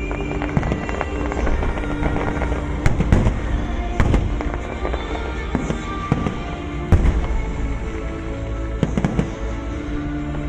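Fireworks display: aerial shells bursting in a dense run of bangs and crackling, with the loudest bangs about three, four and seven seconds in. Music plays underneath.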